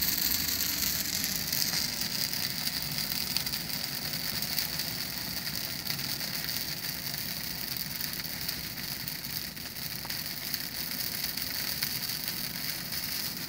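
Large open fire burning with dense, continuous crackling and hissing.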